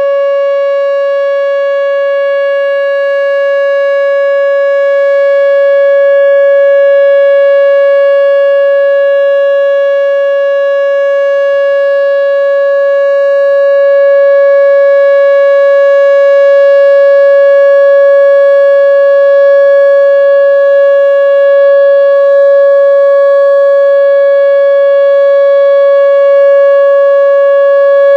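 Whelen WPS-2910 electronic outdoor warning siren sounding its steady alert signal: one unwavering, very loud tone that holds the same pitch throughout, with no rise or fall.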